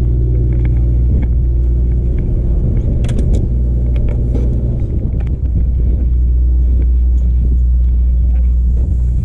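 A fishing boat's engine running steadily with a low, even drone. A few sharp clicks and knocks around three to five seconds in come from fishing rods being handled in the rail rod holders.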